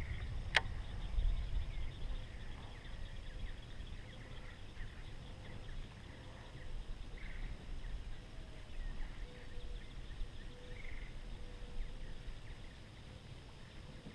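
Low wind rumble on the microphone, with one sharp click about half a second in and a few faint bird chirps.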